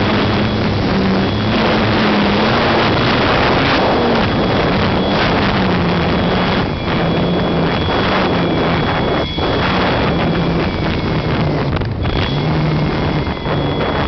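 Airflow rushing loudly over the microphone of a camera mounted on an RC glider in fast, low flight. Under the rush, a low hum wavers up and down in pitch and drops out now and then, and a thin high tone runs steadily.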